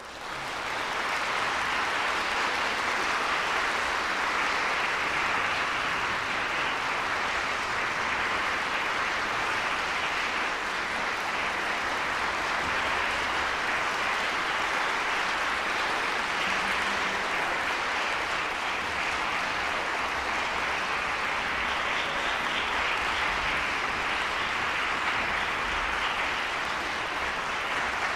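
Audience applause in a concert hall, breaking out of silence and then holding steady.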